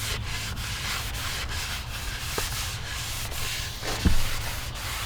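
Repeated hand strokes rubbing over the wooden blade of a canoe paddle, with a low knock about four seconds in.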